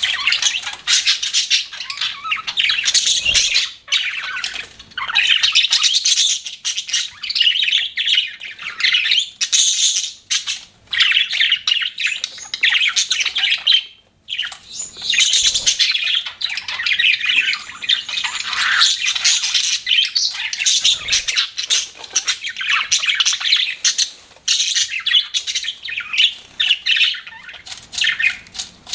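Budgerigars chirping and chattering, with harsh squawks mixed in, near continuously with only brief pauses.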